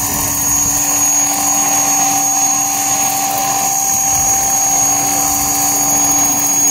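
Large-scale electric radio-controlled model of an Aérospatiale Lama helicopter flying low, with a steady whine from its electric drive and rotors.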